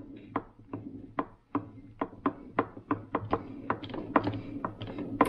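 Geartrain of an opened Subaru five-speed manual transmission being turned by hand: gears and synchronizer rings clicking in an uneven rhythm that quickens toward the end, over a steady low hum.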